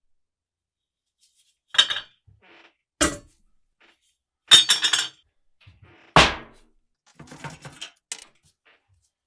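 A series of sharp metal knocks and clinks, as metal oil-lamp parts are handled and set down on a hard surface. The loudest, about six seconds in, rings briefly; lighter clicks follow.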